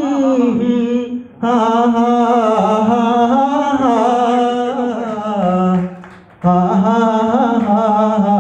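A man singing solo into a handheld microphone, slow long-held notes in three phrases with short breaths between them, about a second in and again around six seconds.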